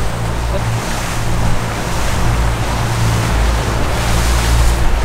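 Twin Mercury outboard engines running steadily with the boat under way, a low steady drone under the rush of wake water and wind on the microphone.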